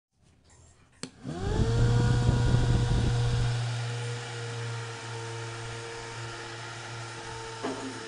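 A click, then a homemade DC-motor table fan with a plastic propeller spins up with a quickly rising whine and settles into a steady motor hum. The rush of air from the blades is loudest for the first couple of seconds after start-up, then eases.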